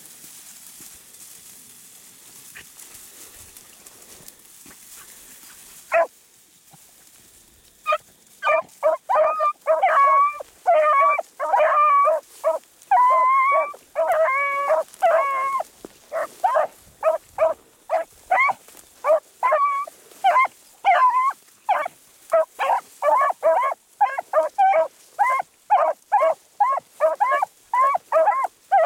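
Beagles baying on a rabbit's scent as they run it through brush. One short bay comes about six seconds in, and from about eight seconds on there is a fast, unbroken run of short bays, with more than one voice at times.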